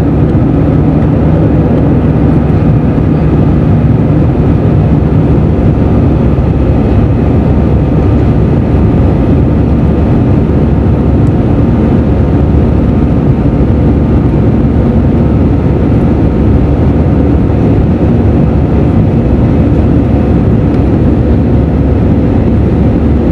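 Steady jet engine and airflow noise of an Airbus A320 heard inside the cabin from a window seat over the wing during the climb. A low steady tone in the noise fades away about five seconds in.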